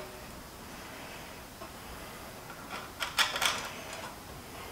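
Light metallic clicks and rattles of a stainless steel license plate bracket and its bolts being fitted by hand, bunched about three seconds in.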